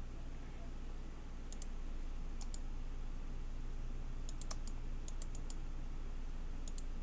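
Computer mouse buttons clicking: about a dozen sharp clicks in short groups of two to four, over a steady low hum.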